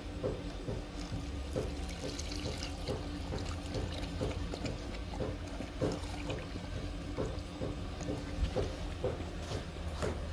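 Dog lapping milk from a shallow plastic tray, with an even rhythm of about two to three wet laps a second.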